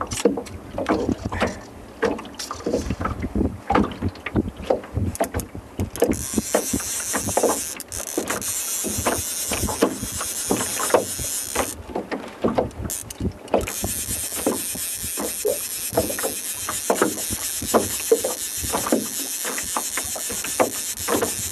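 Water lapping and splashing in quick irregular slaps. From about six seconds in a steady high hiss joins, breaks off briefly around twelve seconds, and then returns.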